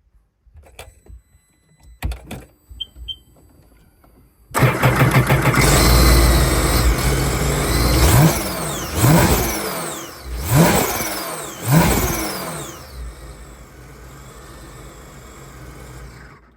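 A few clicks and two short beeps, then a supercharged Sea-Doo engine starts abruptly about four and a half seconds in. It is revved four times, each time with a high whine that falls away as the revs drop, then settles to a steady idle before cutting off.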